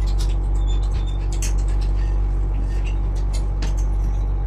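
Steady low mechanical hum with a few constant tones, with many light clicks and taps scattered over it.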